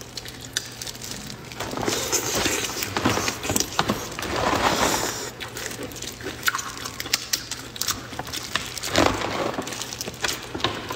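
Shell of a large tiger prawn cracking and being pulled off by gloved hands: a run of crackles, snaps and crunches, busiest in the first half and again near the end.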